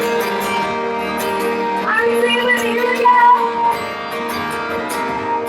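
Live band music with held, steady chords; a woman's voice sings a short phrase over it about two seconds in.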